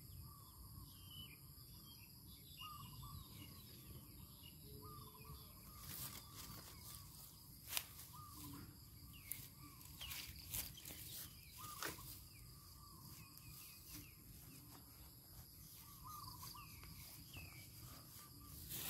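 Faint outdoor ambience of insects droning steadily at a high pitch, with short chirping calls repeating every second or two and a few sharp clicks and rustles.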